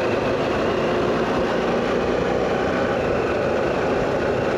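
Harley-Davidson Pan America motorcycle riding along at a steady speed: an even mix of engine and wind noise with no change in pace.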